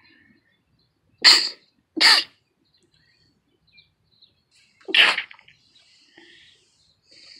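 A person sneezing three times: two sneezes in quick succession about a second in, then a third about three seconds later.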